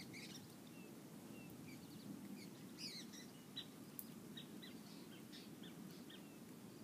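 Faint, scattered short bird chirps over a steady low background rumble.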